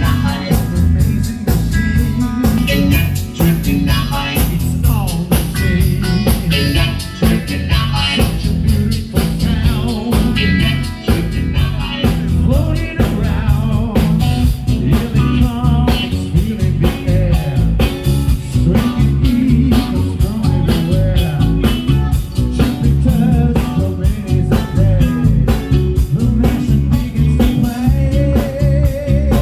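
Live rock band playing: a steady drum beat with electric guitar and bass, and a singing voice.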